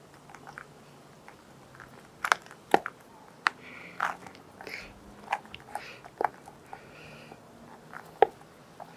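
Irregular clicks, taps and light rubbery crunching as a new rubber fork gaiter is worked onto a Honda CT110 front fork, with a few sharper clicks about two seconds in and near the end.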